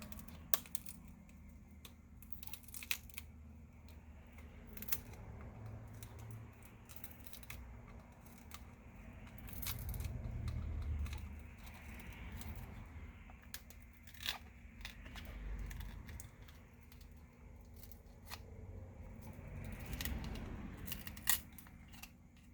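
Scattered sharp clicks, scraping and adhesive tearing as a heat-softened phone screen is pried up from its frame with a thin opening tool.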